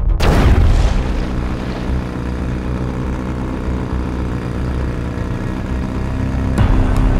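A sudden loud blast just after the start, fading over about a second, then the steady drone of jet ski engines running across the water, which grows louder again near the end.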